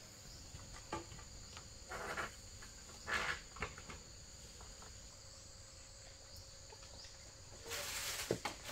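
Insects trilling steadily in a high, thin chorus, with a few short rustling noises and a longer one near the end.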